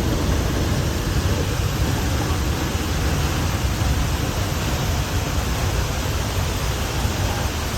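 Waterfall pouring into its pool: a steady, loud rush of falling water.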